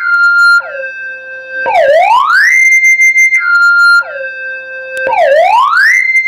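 Electronic siren effect from a Snake ESV650 unit, played loud. The pitch dips, climbs to a high held note, then drops and slides down, repeating about every two seconds.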